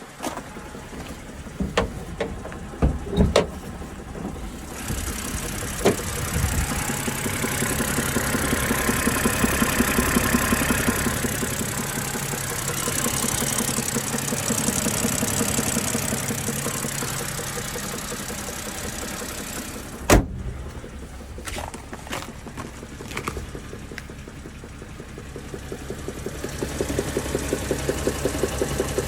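BMW N52B25 2.5-litre straight-six engine running with a knock from under the hood. Sharp knocks come here and there, the loudest about twenty seconds in, and an even, fast ticking runs through the last few seconds.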